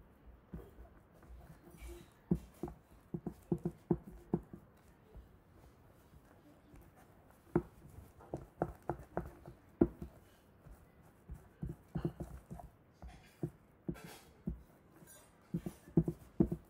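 Plastic spoon stirring thick, sticky fluffy slime in a plastic tub: irregular knocks and taps of the spoon against the tub, some in quick runs. The slime is thickening after more lens-solution activator was added.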